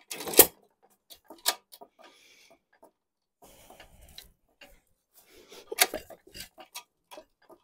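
A 1-1/2 hp Sandwich Cub single-cylinder hit-and-miss engine being spun over by hand at the flywheels, giving irregular clacks and a few loud sharp pops as it fires without catching and running. It won't keep running because it isn't drawing gas, which the owner blames on a dry, stuck check ball in the gas tank.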